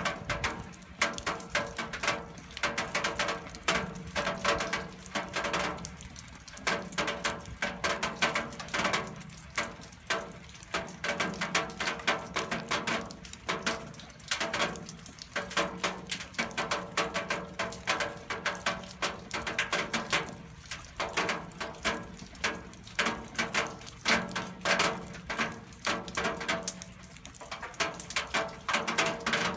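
Rainwater dripping and splashing onto metal: a dense, irregular patter of drops tapping the surface.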